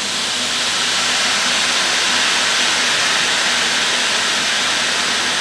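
Steady loud hiss of rushing air, swelling a little over the first second and then holding level, with a faint low hum beneath.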